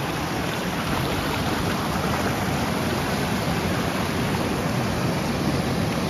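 Steady rush of river water at Athirappilly Falls, an even, unbroken roar of flowing water.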